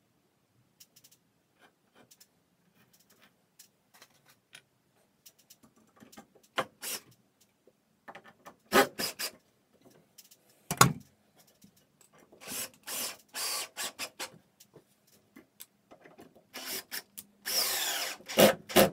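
Power drill driving screws into wood in a few short bursts, the last and longest near the end, with small knocks and clicks of handling the wood and tool in between.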